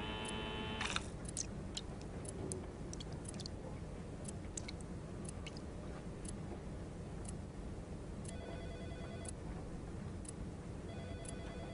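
Quiet room tone with scattered faint clicks, and three short electronic tones about a second long each, one at the start and two near the end.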